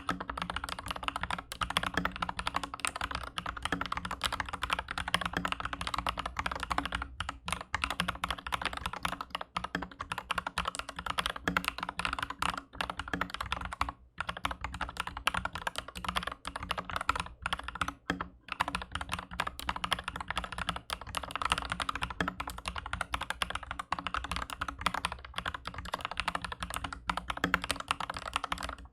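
Aflion AF82 75% mechanical keyboard with MM linear switches on a steel plate and PBT keycaps, typed on quickly and continuously, with brief pauses about halfway through.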